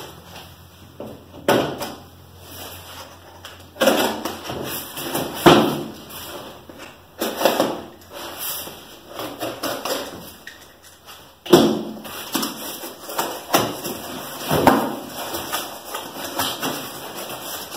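A long cardboard shipping box being opened and its contents handled: irregular knocks, thuds and short scraping sounds, with a few sharp loud knocks in the middle.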